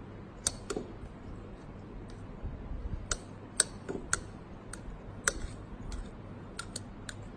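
Metal table knife clinking against a ridged drinking glass as it stirs water, about ten sharp, irregularly spaced clinks, each with a short glassy ring.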